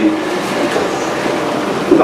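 Steady rushing background noise with no distinct events, in a pause between words of a man's speech.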